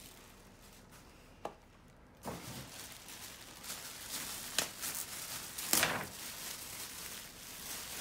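Plastic packaging bag rustling and crinkling as it is pulled off a coffee machine, with a sharp crinkle a little past the middle and a louder burst about three-quarters of the way through. A single small click comes about one and a half seconds in, before the rustling starts.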